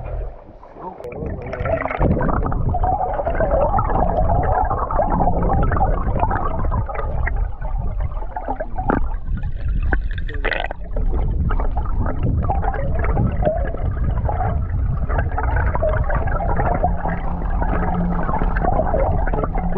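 Loud, continuous gurgling and rushing of river water close to the microphone, with a short lull partway through.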